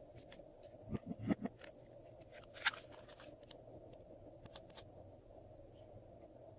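Glossy slime being worked by hand, giving scattered small clicks and pops with a few soft thuds about a second in, over a faint steady hum.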